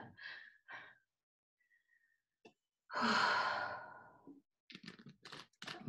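A woman's long, breathy sigh about three seconds in, fading out over about a second: catching her breath after hard exercise. A few faint clicks follow near the end.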